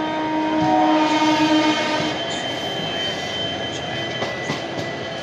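A train horn sounding a steady note for about the first two seconds, over the continuous rumble and clatter of train wheels on rails, heard from inside a moving train.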